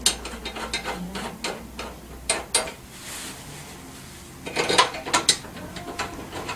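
Small metal clicks and rattles in short clusters as Allen bolts are threaded by hand through a steel rear rack into a scooter's frame.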